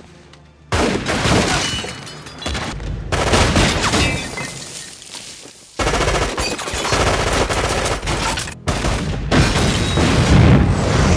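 Film gunfight: heavy, sustained automatic and rapid-fire gunfire breaks out about a second in and runs on with brief gaps, with an explosion near the end.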